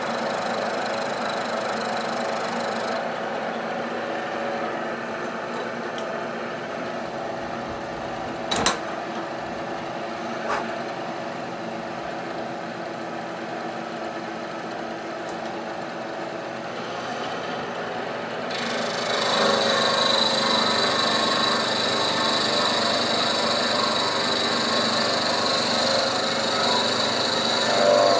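Bridgeport milling machine running, its end mill cutting a metal locomotive crosshead held in the vise. There is a sharp click about nine seconds in, and from about two-thirds of the way through the cut gets louder, with a high whine.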